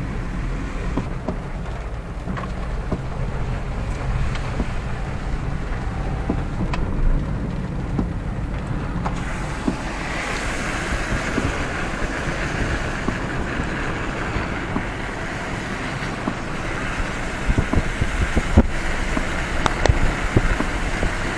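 Car driving on a rain-soaked road: a steady low engine and road rumble with wind noise, and a higher hiss that comes up about halfway through.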